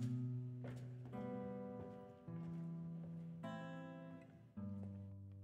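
Acoustic guitar played live, a new strummed chord about every second, each left to ring and fade.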